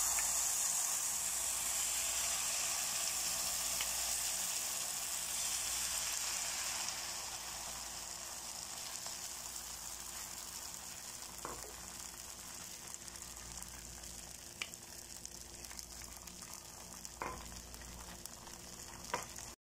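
Serabi batter of rice flour and coconut milk sizzling in a hot nonstick frying pan as it is poured in. The sizzle is loud at first and fades gradually as the batter sets, with a few light clicks of a metal spoon against the pan.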